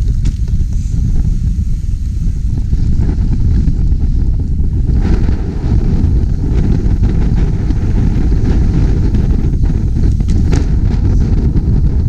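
Strong gusting wind buffeting an action camera's microphone as a mountain bike rolls along a wet boardwalk, a steady low rumble with a few sharp clicks and rattles, the clearest about ten and a half seconds in.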